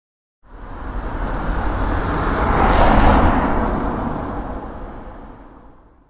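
A car driving past: its sound starts about half a second in, swells to a peak near the middle, then fades away.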